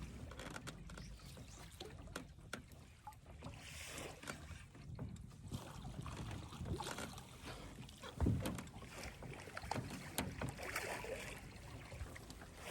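Small scattered knocks and clicks of gear being handled in a fishing boat on a river, over faint water noise, with one heavier thump against the boat about eight seconds in.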